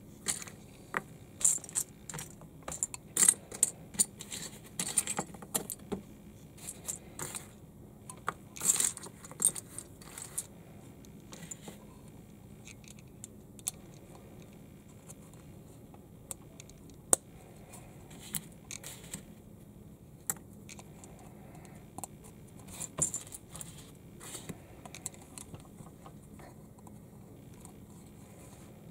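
Small plastic building bricks clicking and rattling as hands rummage through a loose pile of pieces and press bricks onto a plastic baseplate. A busy clatter in the first ten seconds, then only an occasional click, with another short flurry about three quarters of the way through.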